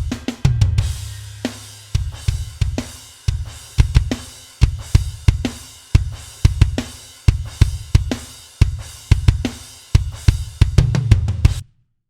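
Drum kit groove playing back: punchy kick drum with snare, hi-hats and cymbals in a steady rhythm. The playback stops suddenly near the end.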